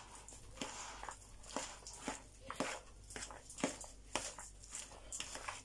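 Bare hands tossing a moist chopped crab-stick salad in a plastic bowl: faint squishing, rustling strokes, about two a second.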